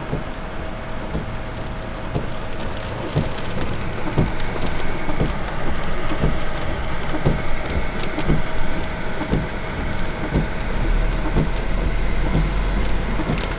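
Heavy thunderstorm rain coming down hard, with many separate drops striking close by. A deep low rumble comes in about eleven seconds in and lasts a couple of seconds.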